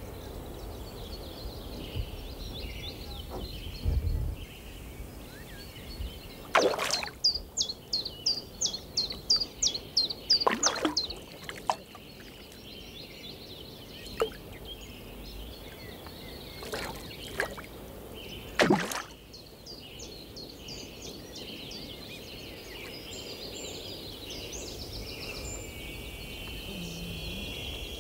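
Outdoor lakeside ambience with birds calling. One bird gives a rapid run of short, high, falling notes, about three a second, for a few seconds. Three loud sudden sounds cut through, the last about two-thirds of the way in.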